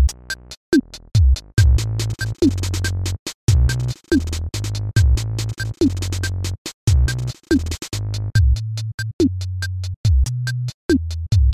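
Electronic background music with a steady drum-machine beat and bass, and a short falling synth note that recurs every couple of seconds.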